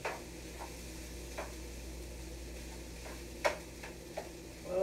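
Fried rice sizzling in a frying pan as it is stirred, with a few sharp clicks and scrapes of the utensil against the pan, the loudest about three and a half seconds in.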